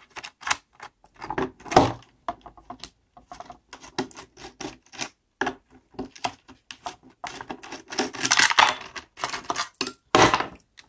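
Rapid small clicks and rattles of a screwdriver working the screws on white plastic 21700 battery-module holders, with metal busbars and screws clinking as they come off. Busier bursts come about 1.5 s, 8 s and 10 s in.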